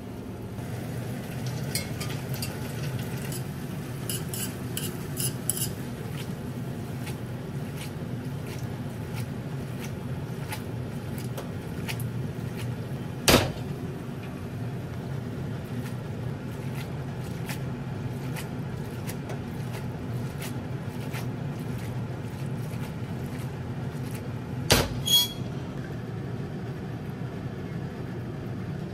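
Metal tongs and utensils clinking and scraping in a stainless steel frying pan as spaghetti is tossed to emulsify the oil and pasta water, over a steady low hum. Two sharp metallic knocks stand out: one about halfway, and a quick double knock near the end.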